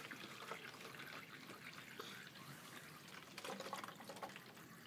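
Faint trickling and gurgling of water draining in a swirling vortex through the joined necks of a plastic two-bottle tornado into the lower bottle, with a few louder gurgles about three and a half seconds in.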